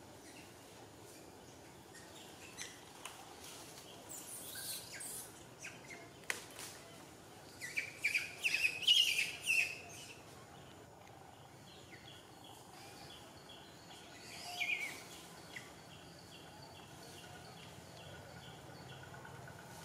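Birds calling: scattered high chirps, loudest in a quick cluster about eight seconds in, with a run of short, evenly spaced high notes in the middle, over faint outdoor background noise.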